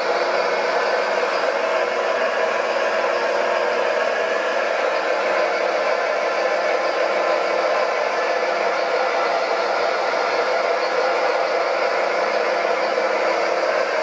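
Radio-controlled model Volvo wheel loader's hydraulic pump and electric drive motors whirring steadily as it lifts and carries a stone block.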